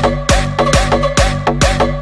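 Dance music with a steady kick drum, about two beats a second, and a short riff repeating between the beats.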